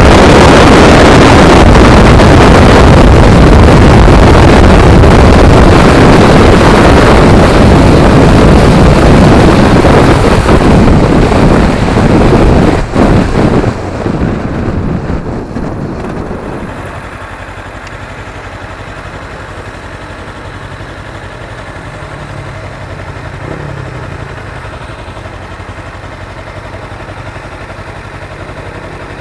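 Heavy wind rushing over the microphone of a motorcycle at road speed, dying away between about 12 and 17 seconds in as the bike slows. The motorcycle engine then idles steadily and much more quietly while the bike is stopped.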